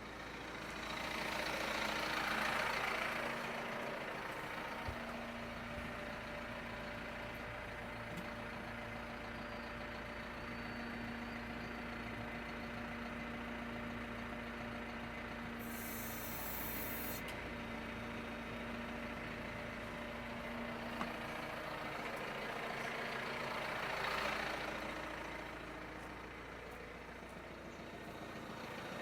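Tractor engine idling steadily, swelling a little twice, with a brief high hiss about halfway through.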